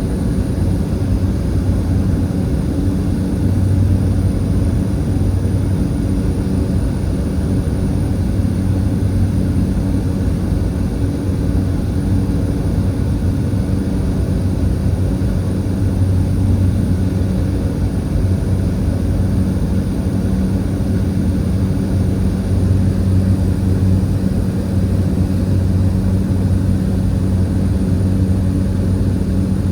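Small propeller commuter plane's engine and propeller droning steadily during takeoff and climb: a constant low hum with a higher overtone over a broad rumble.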